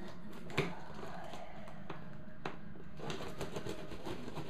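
A knife cutting the packing tape and cardboard of a parcel: a few sharp ticks of the blade, then rough scraping and rustling of the cardboard near the end, over a steady low hum.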